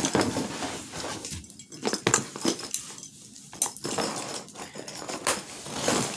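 Irregular rustling and crinkling of packaging, paper and plastic being rummaged through by hand, in a quick run of sharp crackles.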